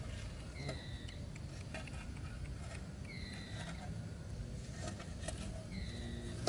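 A bird repeats a short, falling chirp about every two and a half seconds, with scattered light clicks and knocks from gear being handled over a low rumble.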